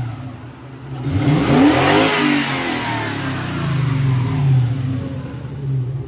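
Car engine of an engine-swapped SsangYong Korando blipped once from idle: it rises about a second in, peaks, then drops back to a steady idle. It runs through a straight-through muffler.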